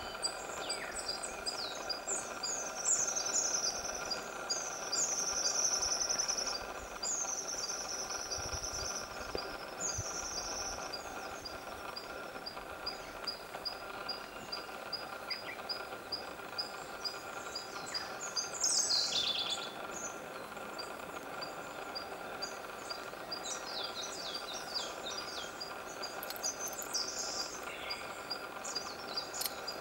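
Woodland songbirds singing and calling, with clear high phrases in the first ten seconds and again near the end, over a faint high tick repeating about twice a second and a steady background hum.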